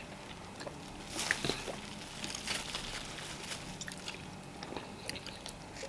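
Quiet eating sounds of fufu with vegetable soup: soft, scattered wet clicks and smacks of chewing.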